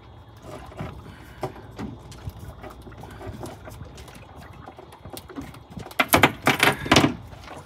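Handling noises aboard a small fishing boat just after an amberjack is landed: scattered knocks and clatter, with a loud flurry of slaps and knocks about six seconds in.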